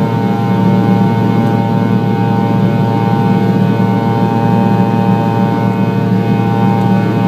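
Fokker 100's rear-mounted Rolls-Royce Tay turbofan running steadily in the climb, heard from inside the cabin: a low rumble with several steady whining tones above it.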